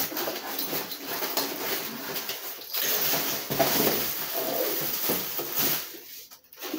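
Plastic wrapping crinkling and rustling, and cardboard scraping, as a plastic-wrapped grass cutter part is slid out of its long cardboard box; the rustle eases off near the end.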